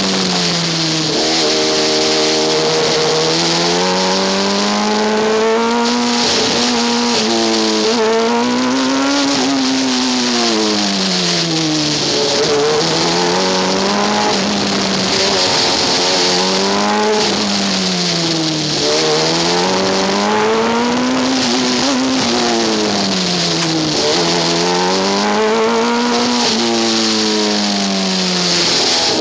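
Formula Student race car engine heard on board, its pitch repeatedly climbing under acceleration and dropping away as the car slows for the next corner.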